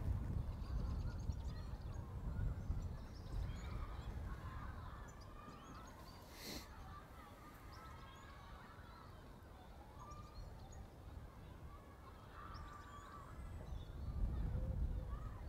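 Wind rumbling on the microphone, heavier at the start and again near the end, with birds calling in the background throughout. A brief rustling hiss comes about six and a half seconds in.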